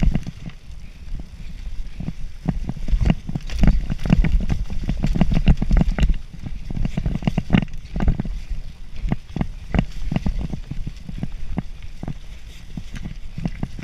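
Mountain bike descending a rough dirt trail at speed: a steady low rumble of tyres on dirt with frequent sharp clatters and knocks as the bike rattles over roots and bumps.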